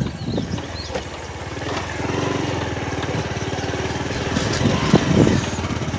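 Motorcycle engine running steadily while being ridden along a rough dirt track. Wind buffets the microphone in the first couple of seconds, and then the engine note comes through clearly.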